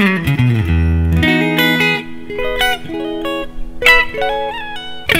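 Tokai AST-52 Goldstar Sound electric guitar played clean on its middle single-coil pickup. A quick falling run leads into a held low chord about a second in, followed by short chord and single-note phrases.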